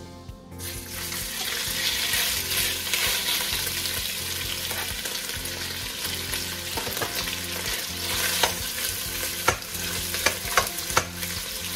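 Bacon pieces sizzling as they drop into hot olive oil in a stainless steel pot, the hiss starting just under a second in. A metal spoon stirs them, with several sharp clinks against the pot in the last few seconds.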